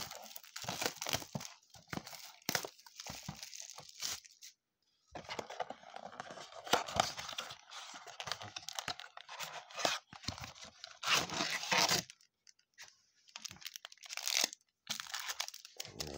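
A blaster box of baseball trading cards being torn open by hand: plastic wrap and packaging tearing and crinkling in several bursts, with brief pauses between them.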